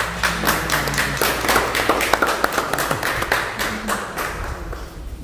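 Small audience clapping, dying down near the end.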